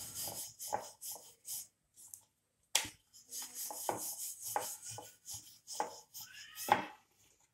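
Wooden rolling pin rolling out paratha dough on a wooden board (chakla): repeated short rubbing strokes. There is a sharp knock about three seconds in and a louder one near the end.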